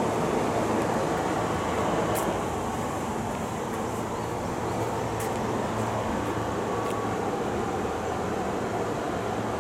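Steady rumble of an electric commuter train at a station, with a few faint sharp clicks.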